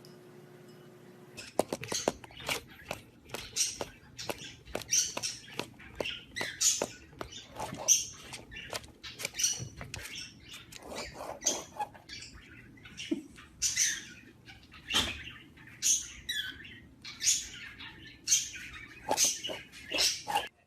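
A parrot giving a fast run of short, high chirps and squawks, several a second, mixed with sharp clicks; it starts about a second and a half in.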